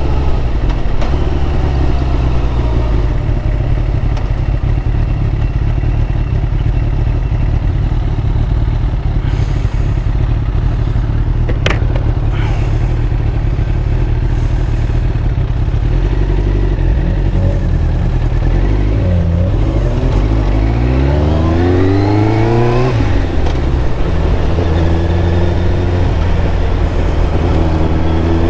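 Yamaha Thunderace's inline-four engine running steadily under way, then accelerating hard with two rising pulls between about 18 and 23 seconds in, each cut off by a gear change.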